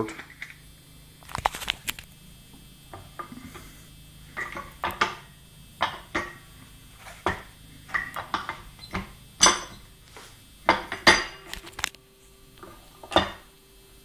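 Metal clinks and knocks as the metal die mould of a hand-operated fridge magnet making press is slid and handled while the picture, metal shell and cardboard are loaded and pressed. The knocks come at irregular intervals, the loudest ones in the second half.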